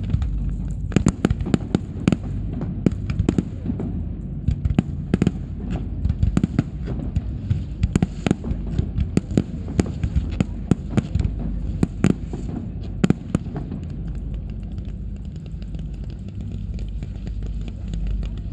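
Fireworks display: a dense run of sharp cracks and bangs from exploding aerial shells, thinning out after about thirteen seconds, over a steady low rumble.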